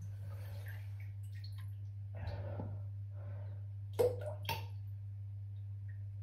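Stool dropping into toilet bowl water: a soft splash about two seconds in, then two sharp plops about half a second apart around four seconds in, the first the loudest. A steady low hum runs underneath.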